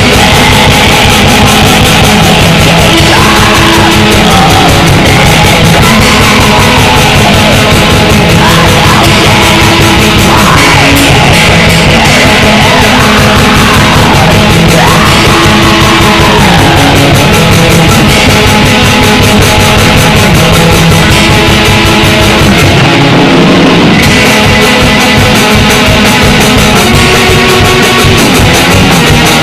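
Raw black metal recording: dense, fuzzy distorted guitars and drums playing without a break. The top end thins out briefly about two-thirds of the way through.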